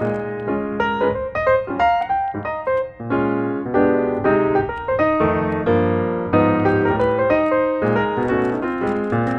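Piano music: a fast, busy stream of notes and chords.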